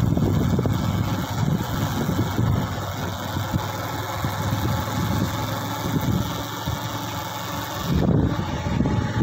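Motor vehicle engine running as it drives along, a steady low rumble with a hiss above it. About eight seconds in, the hiss thins and the rumble grows louder.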